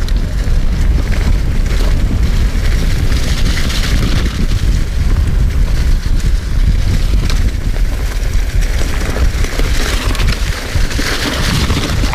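Wind buffeting a chest-mounted action camera's microphone as a mountain bike rides fast downhill, with its tyres rolling over a dirt trail covered in dry fallen leaves. A steady low rumble throughout, with the rushing noise swelling louder twice.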